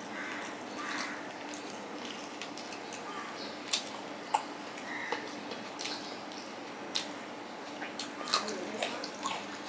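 Close-miked hand-eating sounds: fingers squishing and mixing rice and fried hilsa fish on a steel plate, with scattered sharp clicks and wet smacks, over a steady hiss.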